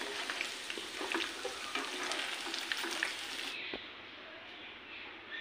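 Marinated chicken pieces frying in hot coconut oil in a nonstick pan, a steady sizzle full of sharp crackles, with a spatula stirring them. The sizzle cuts off suddenly about three and a half seconds in, leaving only faint scattered clicks.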